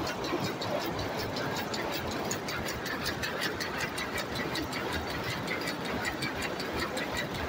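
Jacquard loom running and weaving, a fast, even mechanical clatter of several strokes a second over a steady machine rumble.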